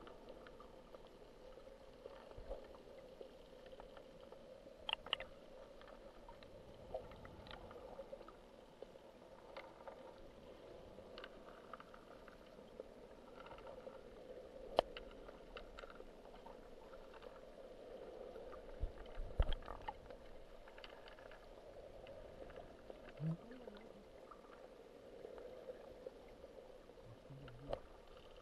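Faint, muffled underwater ambience picked up by a camera held underwater: a low steady hum with scattered short clicks and a few soft knocks.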